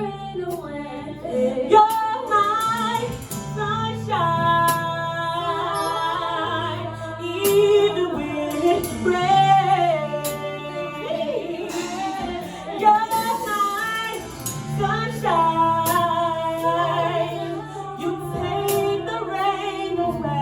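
A woman singing a slow song with long, wavering held notes over a backing track of sustained low notes.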